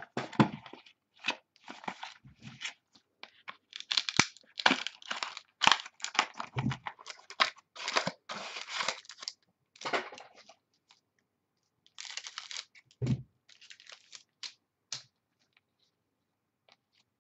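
Foil trading-card pack wrappers being torn open and crinkled as the cards are handled: a run of irregular ripping and rustling that pauses briefly about ten seconds in, resumes, and dies away in the last couple of seconds.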